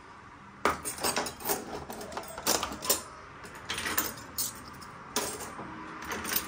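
Metal forks and spoons clinking as they are laid one by one into a dishwasher's top cutlery tray: about ten separate, irregularly spaced clinks.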